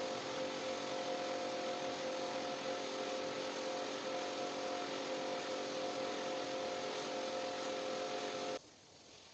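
Rug-cleaning machine running steadily, an even hiss with a steady whine, cutting off suddenly near the end.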